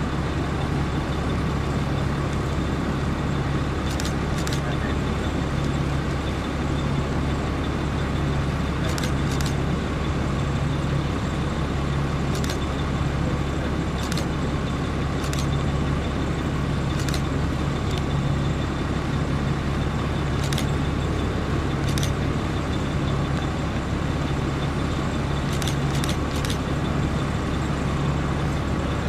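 A slow line of police vehicles driving past: steady engine and tyre noise over a low rumble, with a low hum that comes and goes.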